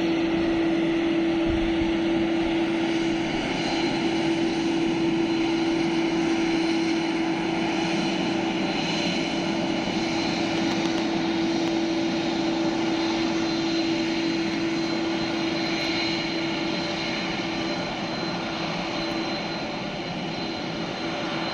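Boeing 767-300 jet engines running steadily: an even roar with a clear steady whine, easing slightly near the end.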